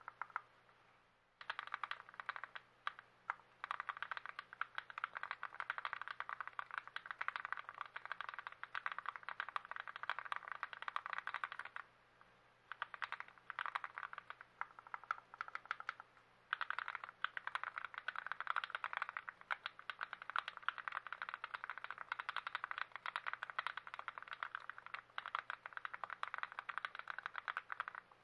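Fast, continuous typing on a TX66 custom mechanical keyboard with lubed switches, a dense run of key clacks broken by brief pauses about a second in and twice in the middle.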